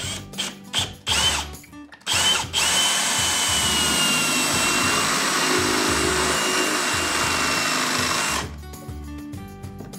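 Cordless drill boring into the aluminum bottom track of a sliding patio door: a few short spurts of the trigger in the first two and a half seconds, then a steady run with a whine for about six seconds that stops shortly before the end.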